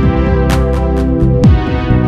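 Electronic music with held synth chords over a beat: deep bass hits falling in pitch and sharp crashes about half a second in and again near the end.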